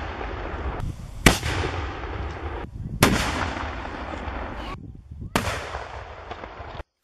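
Three black-powder cannon shots from small wheeled field cannons, each a sharp boom trailing off into a long rumble, roughly two seconds apart.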